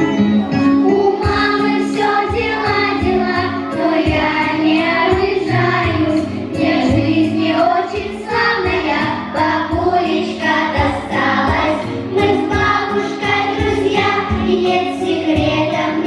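Children's choir singing a song in unison over instrumental accompaniment with a steady beat.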